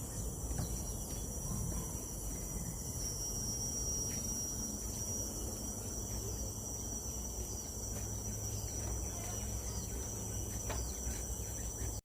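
Forest insects making a steady, high-pitched drone over a low rumble.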